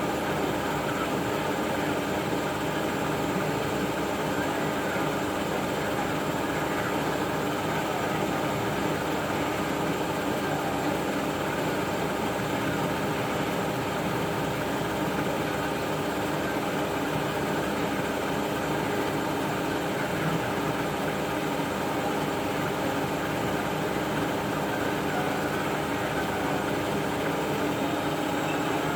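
Siemens Extraklasse F1300A washing machine running steadily, a constant motor hum and whine with several steady tones and no pauses.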